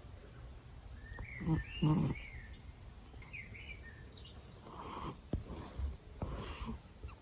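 A cat snoring close to the ear: two louder snores about a second and a half in, then softer noisy breaths, with a few short high chirping squeaks mixed in.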